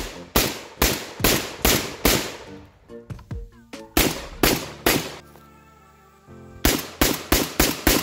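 Rock Island Armory VRF-14 semi-automatic 12-gauge shotgun fired rapidly, in three strings of shots: about six at two to three a second, then three, then about six more in quicker succession near the end.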